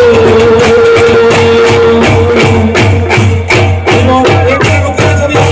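Loud devotional procession music: a long held note over the first two seconds, then dhol and nagada drums beating steadily about two to three times a second, with jingling high percussion throughout.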